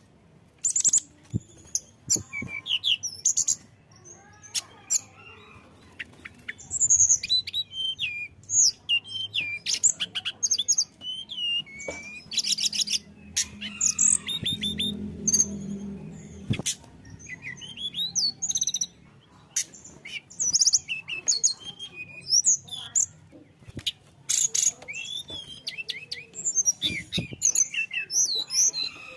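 A tledekan gunung songbird singing a rapid, varied song of high chirps, quick up-and-down whistles and trills, phrase after phrase with short pauses between, over a faint low hum.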